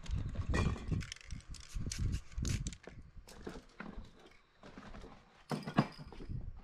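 Sheets of paper and card being handled and laid flat on a work surface: an irregular run of light knocks, taps and paper rustles, with one sharper knock near the end.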